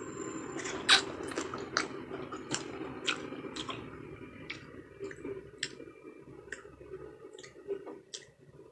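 Close-up eating of ripe mango: wet, sticky mouth clicks and smacks, about one or two a second, the loudest about a second in, over a low steady hum.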